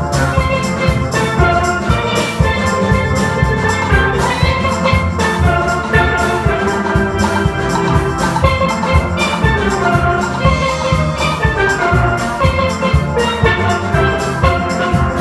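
Steel band playing a gospel tune on steelpans, many struck pan notes ringing together over a steady drum beat.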